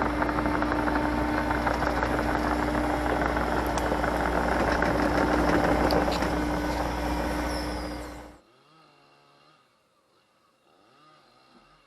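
Excavator diesel engine running steadily with a knocking undertone, cut off abruptly about eight seconds in, leaving only faint background sound.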